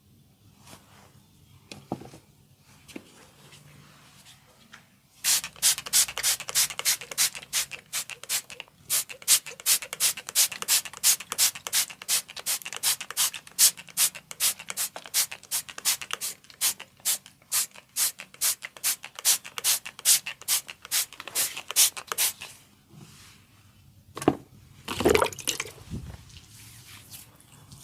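Trigger spray bottle pumped over and over, misting water in short sprays at about three a second for some seventeen seconds. A few louder handling knocks follow near the end.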